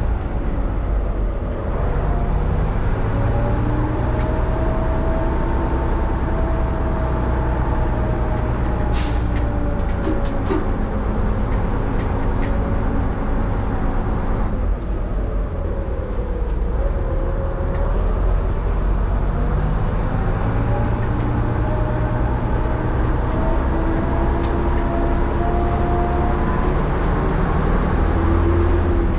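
Leyland Leopard bus's Leyland 680 diesel engine running under way, its note rising and falling as it pulls and eases off, dipping about halfway through and then climbing again. A short air hiss sounds about nine seconds in.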